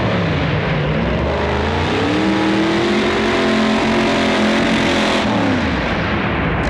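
Modified 4x4 pulling truck's supercharged engine running hard under the load of the pulling sled. Its pitch dips, climbs and holds, then falls away near the end.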